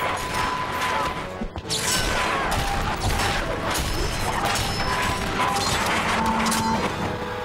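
Chakram sound effects: the metal throwing ring's flight and a rapid series of metallic clangs and whacks as it strikes and ricochets, with brief ringing tones between the hits.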